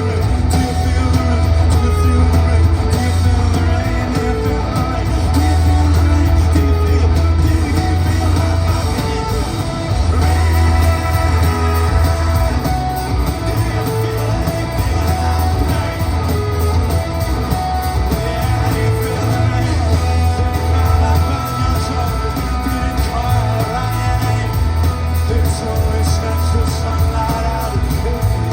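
Live rock band performing: electric guitars, heavy bass and drums with a male lead vocal, heard through the booming sound of a large concert hall.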